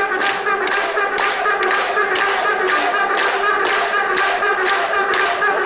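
Audience clapping along in time, about two claps a second, over a brass band playing a march with long held notes.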